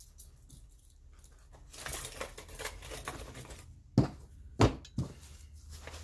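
Small gear and pouches being handled by hand: soft rustling and crinkling, then two sharp knocks about four seconds in, half a second apart, and a lighter knock just after.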